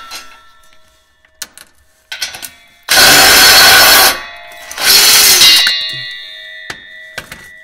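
Cordless DeWalt driver with a 16 mm socket spinning the exhaust flange bolts loose in two loud bursts, about three and five seconds in. Light clicks and rattles of the socket on the bolt come before them.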